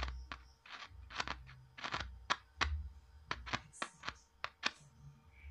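Irregular clicks and crackles with low thumps as a woofer's leads are touched on and off a small battery's terminals, the speaker cone popping at each contact during a polarity check.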